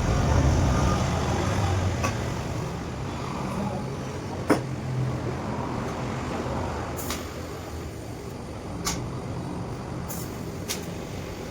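Steady low machine rumble, with a few sharp clicks scattered through it.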